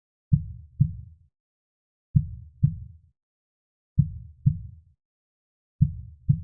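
Heartbeat sound: a slow, steady lub-dub of low double thumps, four beats at about one every two seconds.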